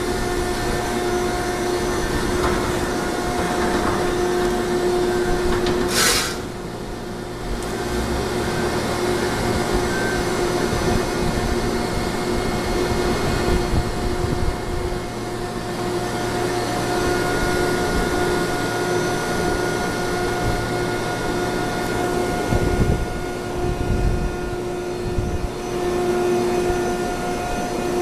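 Industrial baling machine running steadily with a constant motor hum, with a short burst of hiss about six seconds in and a few low thumps near the end.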